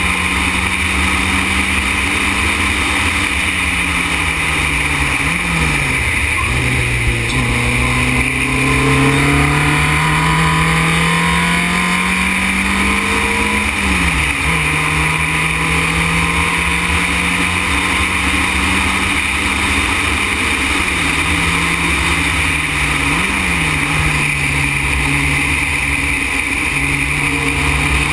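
Formule Renault single-seater's engine at racing speed, heard onboard: its pitch climbs steadily under acceleration and drops suddenly at several gear changes, with loud wind and road noise over it.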